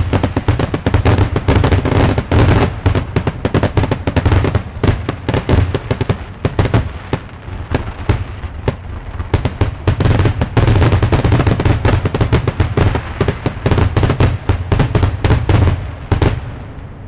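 Aerial firework shells bursting in a rapid barrage of overlapping pops and bangs, as heard from a few hundred yards away. The reports thin out and fade away near the end.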